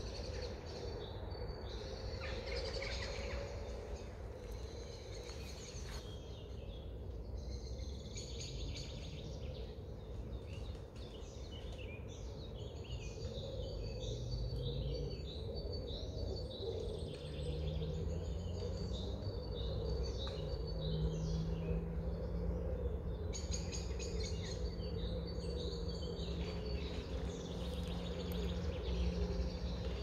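Several songbirds chirping and singing in overlapping short phrases, over a steady low background rumble.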